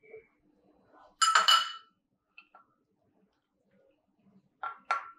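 A spoon clinking against a dish: a longer ringing clatter about a second in, then two short clinks near the end.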